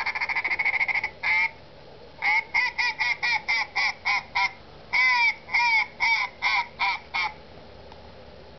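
Recorded duck calls played back from a small handheld device: about a second of rapid quacking chatter, a single quack, then a run of quacks that turn longer and drawn-out before stopping about seven seconds in.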